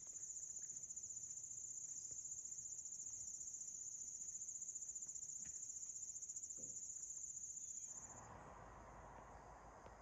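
Insects trilling in a steady, high, fine-grained buzz that cuts off about eight seconds in, leaving a soft rushing hiss.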